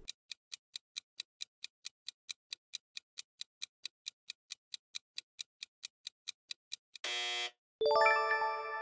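Clock-tick countdown timer sound effect, ticking steadily about three times a second for about seven seconds. It ends in a short electronic buzz, then a ringing chime that slowly fades, signalling that time is up and the answer is shown.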